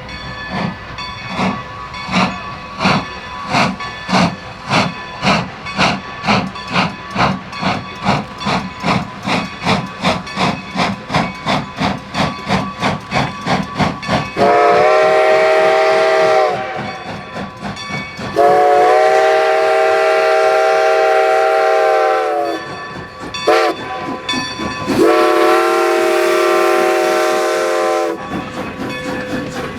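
Steam locomotive working hard, its exhaust beats from the stack quickening steadily. It then sounds its steam whistle long, long, short, long: the grade-crossing signal.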